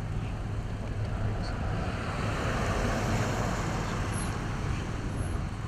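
Wind rumbling steadily on the microphone, with a broader rush of noise that swells about two seconds in and eases off again. Two faint, short high chirps come near the end.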